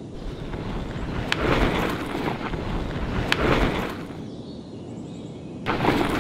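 A rolled rug dragged in tugs across cobblestone paving: a scraping rush about every two seconds, each one starting with a sharp click.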